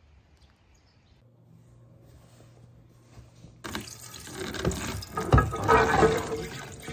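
Kitchen sink tap running onto a plastic tub, water splashing and rattling on it as it is rinsed. It comes in suddenly about halfway through, after a faint, quiet start.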